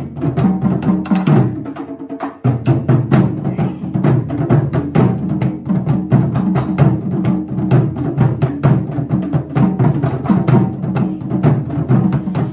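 Japanese taiko drums played with wooden sticks by an ensemble in a fast, driving rhythm of many strikes a second, with a brief break about two seconds in.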